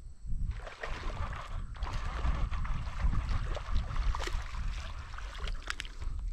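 Small largemouth bass splashing and thrashing at the water's surface as it is reeled in, with water sloshing and many short splashy crackles over a low rumble.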